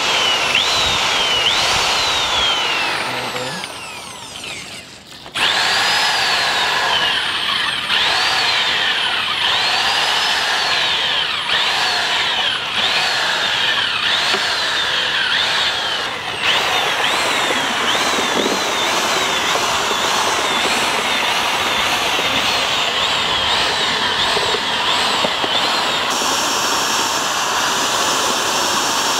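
Handheld electric paddle mixer (a puttu-flour mixing machine with a long steel stirring rod) running in a large aluminium pot, churning milk and chocolate pieces. Its motor whine keeps rising and falling in pitch as the load changes. It eases off for a second or two about four seconds in, then runs up again and carries on.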